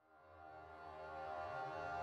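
Slow ambient background music of sustained held notes, fading in from silence at the start.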